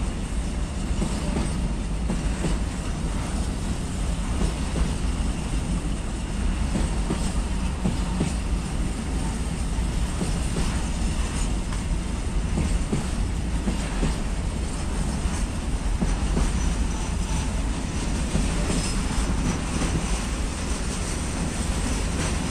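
Container freight train's wagons rolling steadily past, wheels on the rails giving a continuous low rumble with scattered clicks.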